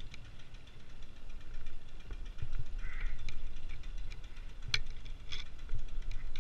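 Low rumble and buffeting on a climber's head-mounted camera microphone, with a few sharp metal clinks about five seconds in from climbing hardware on the harness and rope.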